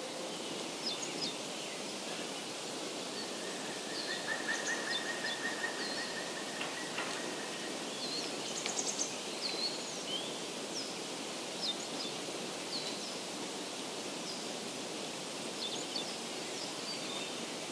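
Outdoor woodland ambience: a steady, even hiss with scattered short bird chirps throughout and one longer trill from about three to six seconds in.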